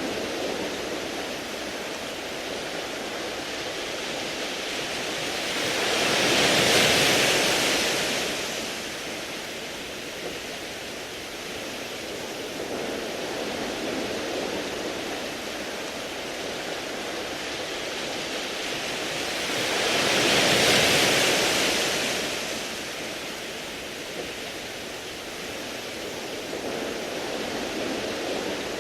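Sea waves washing over a beach of smooth round pebbles: a steady wash with two larger waves swelling up and falling away, one about a quarter of the way in and another about two-thirds in.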